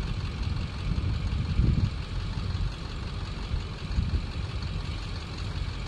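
Pickup truck engine idling as a steady low rumble, swelling louder briefly about a second and a half in and again about four seconds in.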